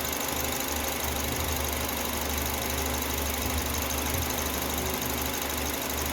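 Small Honda car engine idling steadily while it warms up, with the light injector ticking that is normal on these Hondas.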